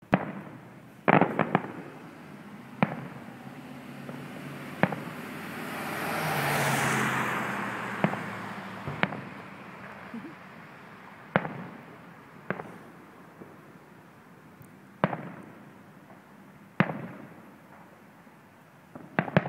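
Aerial fireworks shells bursting: about a dozen sharp booms, one to three seconds apart, each trailing off in a short echo. A longer rushing hiss swells and fades near the middle.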